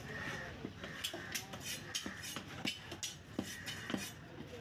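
Cleaver chopping chunks of spot trevally on a wooden log block: a quick, irregular series of sharp chops, roughly two a second, each blade strike hitting the wood.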